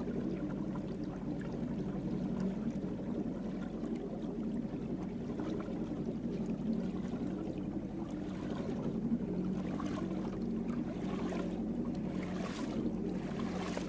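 Boat motor running steadily at a constant pitch, with water splashing or wind gusts coming in over it from about halfway through.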